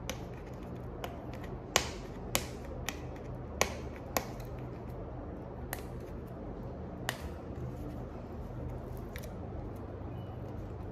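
Irregular sharp clicks and snaps of a fingernail picking at the edge and flap of a paperboard retail box, about ten in all and most in the first four seconds, over a steady low hum.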